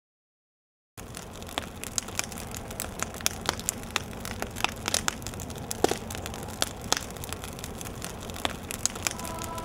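A large fire crackling, starting about a second in: frequent sharp pops and snaps over a steady rush.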